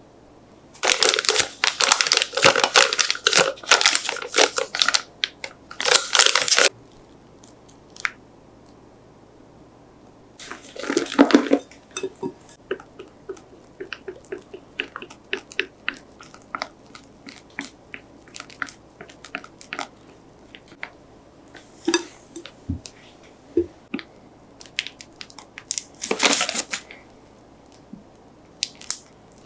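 A plastic piping bag crinkling loudly in bursts as it is handled and filled, with a silicone spatula scraping and tapping against glass bowls as melted chocolate and whipped cream are scraped into the bag, many short clicks and scrapes between.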